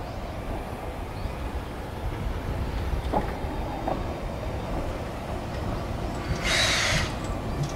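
Steam locomotive C58 363 rolling slowly on the track with a steady low rumble. There are a couple of light clicks about three seconds in, and a short high hiss about six and a half seconds in.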